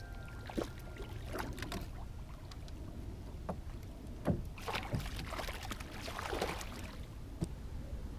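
Irregular knocks and scuffs on a canoe hull over a steady low rumble, with a longer stretch of rustling about five to seven seconds in.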